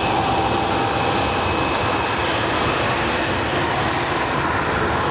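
Jet engines of an Airbus A320 rolling out on the runway just after touchdown: a steady, loud rush of engine and air noise.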